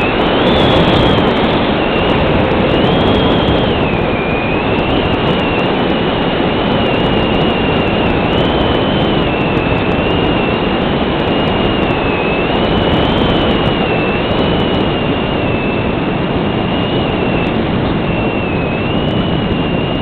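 Electric motor and propeller of a Multiplex Cularis model glider heard from its onboard camera: a steady high whine whose pitch drifts up and down, over loud rushing airflow noise.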